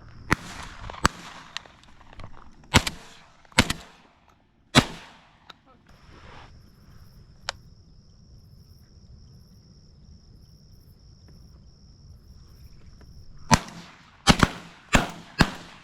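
Shotgun shots on a dove field: five scattered shots in the first five seconds and a quick volley of four or five near the end, each with a short echoing tail. In the lull between them, a steady high insect buzz.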